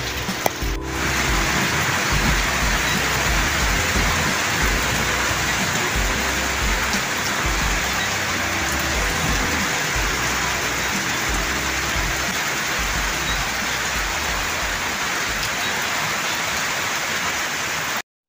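Steady rain falling on a rice paddy and on muddy, water-logged ground, a dense even hiss with an uneven low rumble beneath it. It cuts off abruptly near the end.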